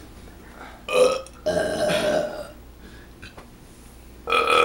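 A person belching on purpose: a short burst about a second in, then a long drawn-out belch of about a second, and another loud burst near the end.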